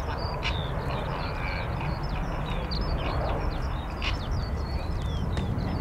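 Distant low rumble of an Airbus A330-303's General Electric CF6-80E1 jet engines at takeoff thrust during the takeoff roll, steady throughout. Birds chirp repeatedly over it.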